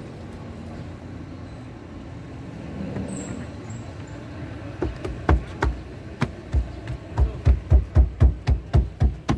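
Steady low hum, then from about five seconds in a run of sharp knocks, quickening to about three a second: hands thumping a plastic interior trim panel to snap its clips back into place.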